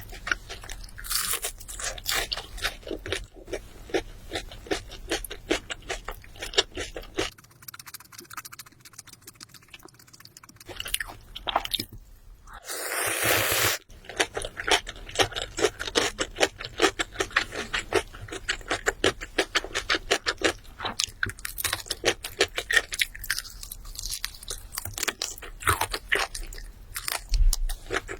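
Close-miked eating: crisp bites and chewing of crunchy food, a rapid run of crackly clicks. About halfway through, a short breathy rush lasts over a second.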